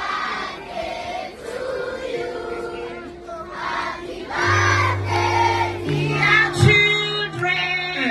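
Music playing with many voices singing together, a crowd of children singing along; a deep bass note comes in about four and a half seconds in.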